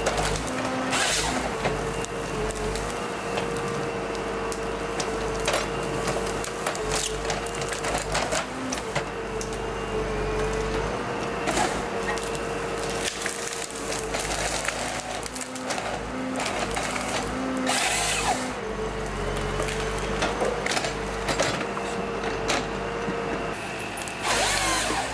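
Forestry harvester with a Kesla 25RH harvester head at work: the engine and hydraulics run steadily with a held whine, broken by knocks and short crackling bursts as the head grips, delimbs and feeds the stems, the loudest near the end.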